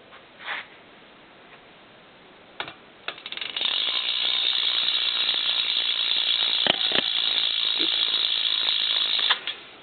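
BMX rear hub with a 10-tooth driver, freewheeling as the wheel is spun: after a couple of single clicks, the pawls click so fast they blur into a steady ratcheting buzz for about six seconds, then stop shortly before the end.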